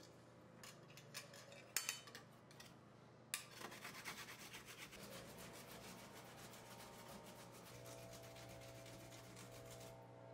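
Fresh peeled ginger root grated on a flat stainless-steel hand grater, faint: a few light clicks at first, then from about three seconds in a quick, steady run of scraping strokes.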